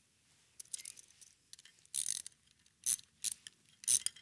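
A few short metallic clicks and rasps, spaced irregularly, from propeller nylock nuts being tightened onto a quadcopter's motor shafts with a tool.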